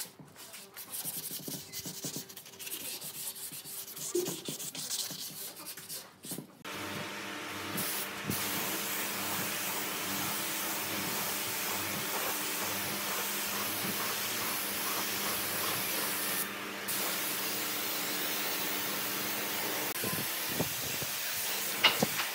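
Sandpaper rubbed by hand along the edge of a wooden tabletop, a scratchy, uneven rubbing. About six and a half seconds in, a gravity-feed paint spray gun starts, and its compressed air makes a steady hiss as it sprays finish onto the table, briefly easing once in the middle.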